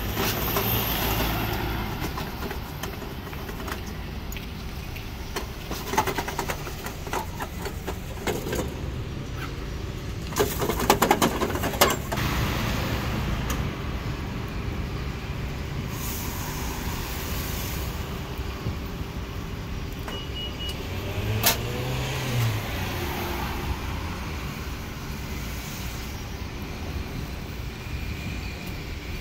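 Roadside street ambience with steady traffic noise. A run of clinks and knocks from metal woks, lids and tongs comes about a third of the way in and is the loudest part. A vehicle passes with a short rising engine note about three-quarters of the way through.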